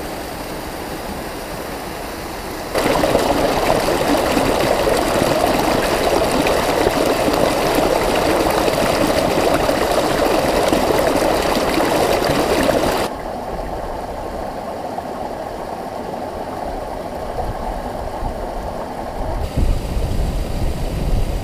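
Mountain stream rushing and splashing over rocks. About three seconds in it jumps much louder and fuller as the water pours right at the camera, then near the middle drops back to a steadier, more even rush of falling water, with a few low bumps near the end.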